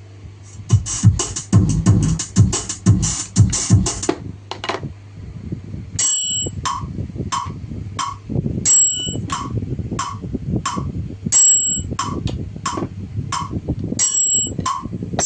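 A Yamaha DTX-M12 electronic percussion pad sounds drum and percussion voices, working again after a no-sound fault was repaired. It begins with a quick run of drum hits, then after about six seconds settles into a steady beat with a bell-like ping about every two-thirds of a second.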